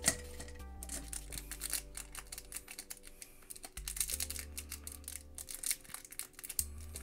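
Quick, irregular clicks and snaps of small model-kit parts being popped out of their frame, over background music with held bass notes.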